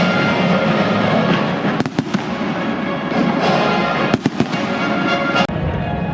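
Fireworks going off in sharp bangs over loud music: a cluster of cracks about two seconds in, another about four seconds in, and a single bang near the end.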